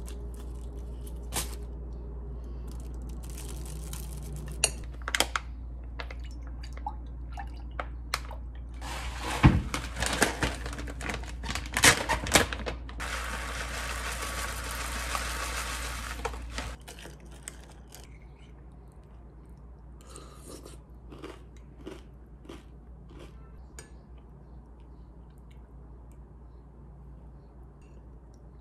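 Kitchen food-handling sounds: a spoon scraping shell off a boiled egg with light clicks and plastic rustling, then sharp rustles and a rush of granola poured from a foil pouch into a ceramic mug for about four seconds, the loudest part. After a sudden drop in the background hum, quieter fork clinks on a plate and soft eating sounds.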